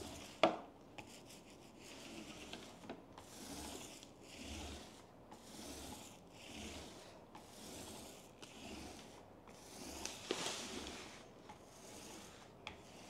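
Small paint roller rolled back and forth over a smooth tabletop, a soft swish repeated about once a second, with a sharp click about half a second in.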